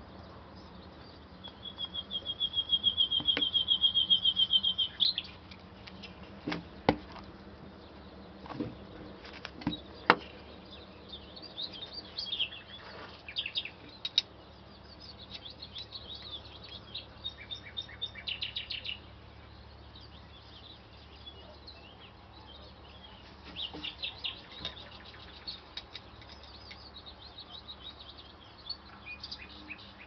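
Small birds calling: a fast, loud trill of rapid repeated high notes for about three seconds near the start, then scattered chirps and twitters. A few sharp clicks come in between.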